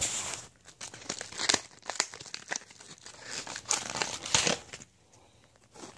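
Fidget spinner packaging being handled and opened: irregular crinkling and rustling with sharp crackles, dying down briefly near the end.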